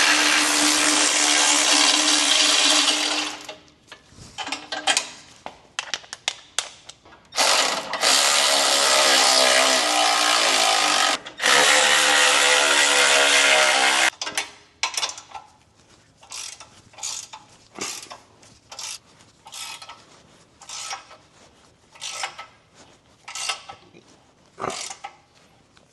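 A cordless power tool running bolts in three runs of a few seconds each, its motor pitch wavering in the later runs, as the skid plate hardware is driven and tightened. Then a string of short, irregular clicks and knocks of hand work on the bolts.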